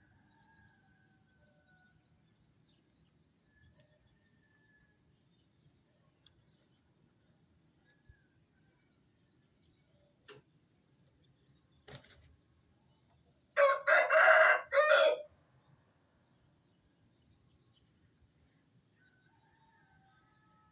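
An Aseel rooster crows once, close and loud, for about a second and a half past the middle, over a steady high chirping of crickets. Fainter roosters crow in the distance near the start and end, and two sharp clicks come a few seconds before the loud crow.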